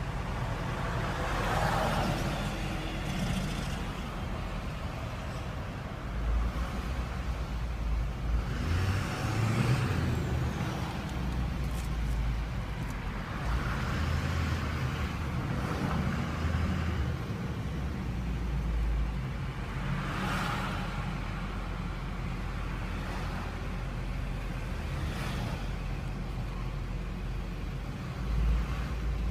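Diesel truck engine running with a steady low rumble, heard from inside the cab while driving slowly, with passing traffic swelling by several times.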